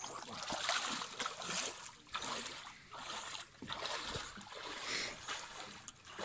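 Shallow water splashing and sloshing in uneven bursts as a person wades through it and lowers a wire keepnet full of fish into the water.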